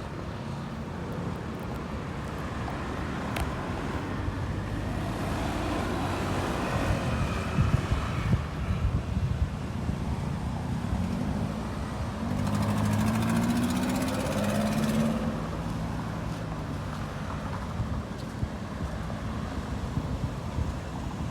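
Road traffic going by, with motor-vehicle engines rumbling throughout and one vehicle passing close about halfway through.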